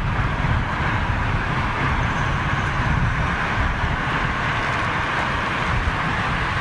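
Steady rushing roar of a jet airliner's engines, with a fluttering low rumble underneath.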